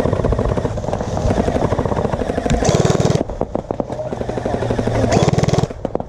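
Electric gel blasters firing rapid full-auto bursts, a quick motor-driven clatter of shots. Two louder bursts of about half a second come about halfway through and near the end, with more rapid firing between them.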